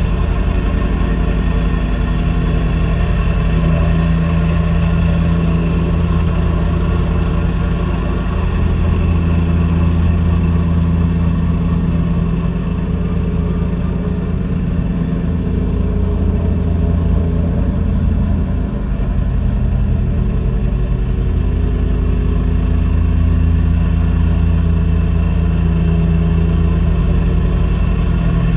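Mini excavator's engine running steadily, its note shifting slightly now and then, with a brief dip a little past halfway.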